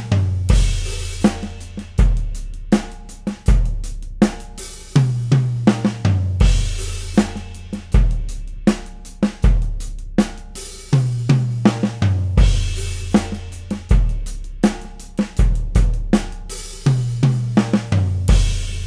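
Acoustic drum kit played in a steady groove, raw and unmixed: kick drum, snare, hi-hat and cymbals, with a tom fill running from the high tom down to the floor tom about every six seconds. The toms carry fresh clear Evans G12 batter heads over clear G1 resonant heads and ring on after each hit.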